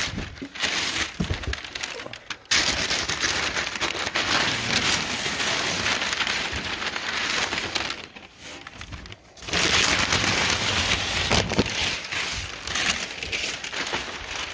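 Brown kraft packing paper rustling and crinkling as it is pulled and crumpled out of a cardboard box, in long stretches broken by short pauses, the longest about eight seconds in.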